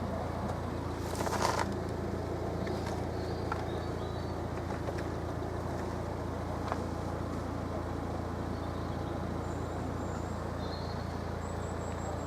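Steady low rumble of road traffic, with a short rustling burst about a second in and a few faint clicks and high chirps.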